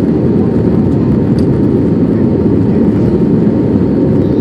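Steady low roar inside an Airbus A320's cabin during the climb after takeoff: jet engine noise and rushing airflow, even and unbroken.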